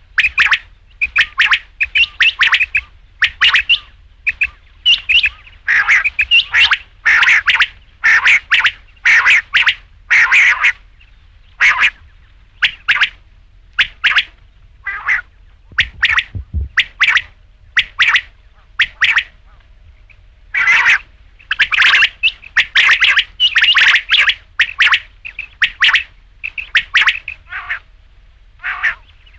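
Quail calling over and over: short, sharp chirping notes in quick runs, broken by brief pauses.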